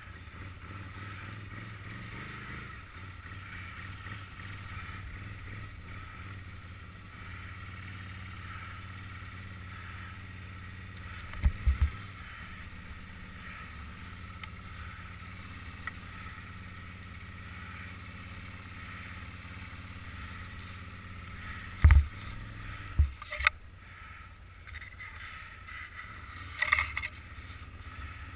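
Tracked Can-Am 800R ATV's V-twin engine running steadily while its winch pulls the machine out of a snow drift. Several sharp knocks and clunks come through, the loudest about 22 seconds in.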